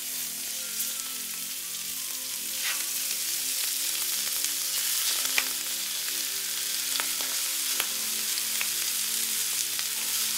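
Dove-breast, jalapeño and bacon poppers frying in a hot skillet: a steady sizzle with scattered sharp pops of spitting fat.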